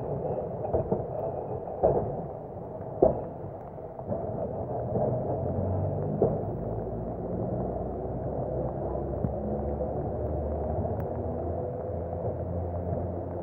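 Leeds tram 399, a double-deck electric tram, running away along the track over a steady noise, with a few sharp clacks from the wheels on the rails in the first half.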